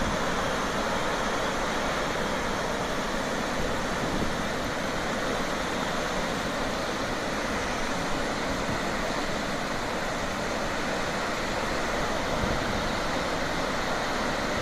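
Steady rushing noise of floodwater pouring through a dam's spillway with all its gates open.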